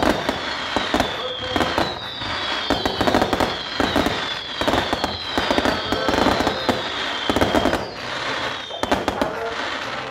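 Fireworks finale barrage: dense crackling and popping from many shells bursting at once, with louder bangs through it and a high whistle that falls in pitch repeating about once a second, easing off near the end.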